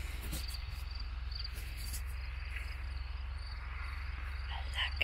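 Insects chirping in short, repeated high trills, over a steady low wind rumble on the microphone.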